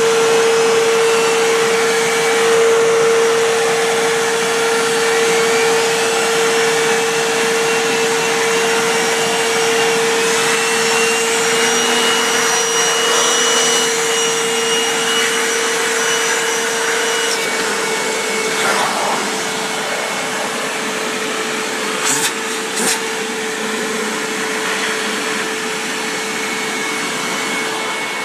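Hoover WindTunnel upright vacuum cleaner running steadily, its motor hum with a strong, even tone that eases slightly about two-thirds of the way through. Two short knocks come close together near the end.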